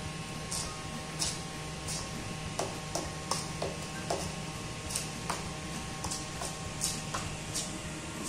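A metal fork scraping and clinking against a stainless steel mixing bowl in short, irregular strokes, about two a second, as a soft potato and tuna mash is worked together. A steady hum runs underneath.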